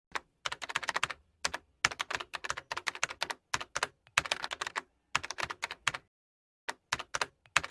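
Typing on a computer keyboard: quick runs of sharp key clicks with short pauses, stopping briefly about six seconds in.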